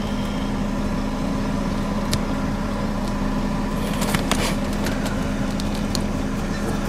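Steady low hum of the Scania R500's 16-litre V8 idling, heard inside the cab, with a few light clicks.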